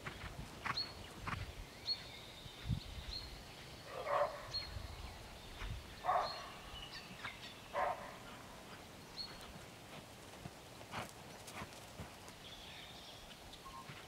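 Hoofbeats of a horse cantering on grass, heard at a distance, with short high chirps throughout. A few louder sounds come about four, six and eight seconds in.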